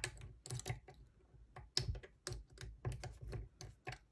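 Lock pick and tension tool working in the keyway of a drilled Ultion 3-star euro cylinder: irregular sharp metal clicks and taps as the pins are worked and the core is turned.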